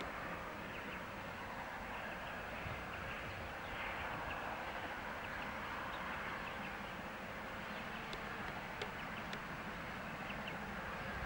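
Ex-South Australian Railways 4-8-4 steam locomotive 520 working a train in the distance, heard faintly as a steady noise with no clear beat.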